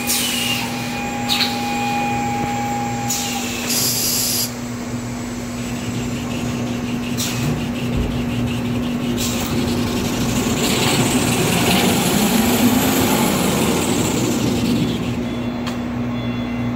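Kitchen towel paper rewinding line running: a steady machine hum with a constant tone, a few sharp clicks, and a brief hiss that cuts off about four and a half seconds in. The machinery grows louder from about ten to fifteen seconds in.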